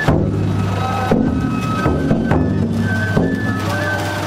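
Danjiri festival music (narimono) from the float: a bamboo flute plays a melody of held high notes over drum strokes about once a second.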